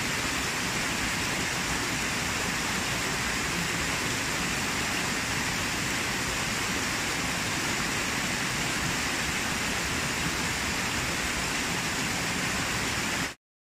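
Small waterfall rushing steadily over rocks and splashing into a pool, cutting off abruptly near the end.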